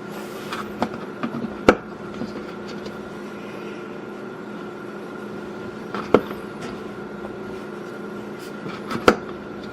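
Steady hum with a few sharp clicks of a utensil against a dish: one a little under two seconds in, one about six seconds in, and one near the end.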